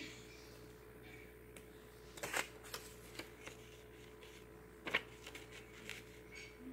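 Hands handling small craft pieces: soft rustling and light clicks, with two louder scraping rustles about two and five seconds in. A faint steady hum runs underneath.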